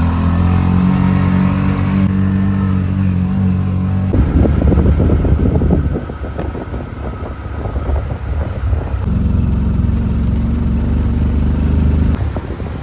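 A small motor-vehicle engine running close by. It is steady at first; about four seconds in it turns rougher and rattling, and the steady engine note comes back later.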